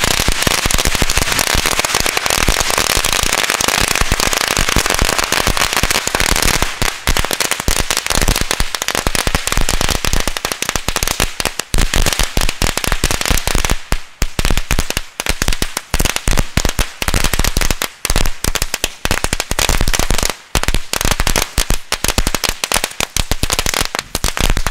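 Rabiator 300 and Rabiator 500 firecracker chains going off together. For about the first six seconds the bangs come so fast they merge into one dense rattle, then they break into rapid separate bangs that keep on to the end.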